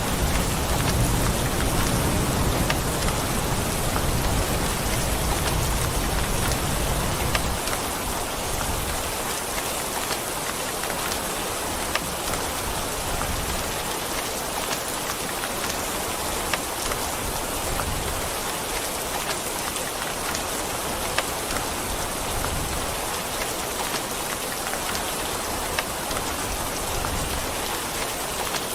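Steady rain, an even hiss with scattered sharp drop ticks. A low thunder rumble underneath fades out about seven seconds in.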